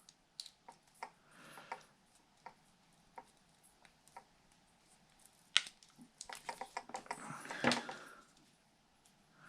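Scattered small clicks and snips from hand tools cutting and stripping the insulation off battery wires, busiest from about six to eight seconds in, with a louder click near the end.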